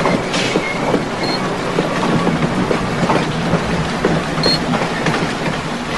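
Elevated train rattling along its tracks overhead, a steady clatter with a couple of brief high squeals.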